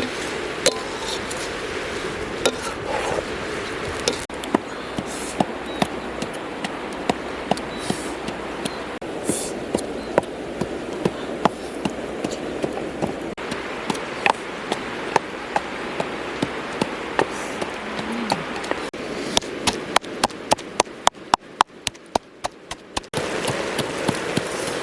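Knife chopping on a cutting board: single sharp knocks about once a second, then a quick run of about a dozen louder chops near the end, over a steady background hiss.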